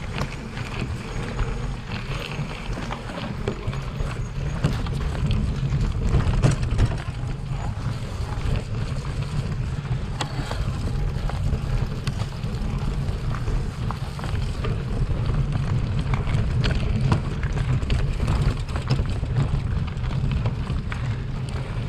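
Wind buffeting the microphone while a gravel bike rides over a rough, rocky dirt track, with many scattered clicks and rattles from the bike jolting over the stones.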